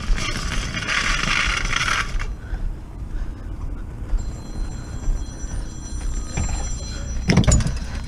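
Objects being handled: a scraping rustle for about two seconds, then quieter handling with a faint high whine, and a knock or clatter about seven seconds in.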